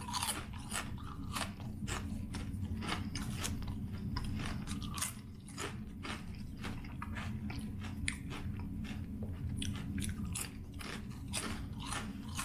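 Close-miked chewing of ridged potato chips: a steady run of crisp, irregular crunches, over a faint steady low hum.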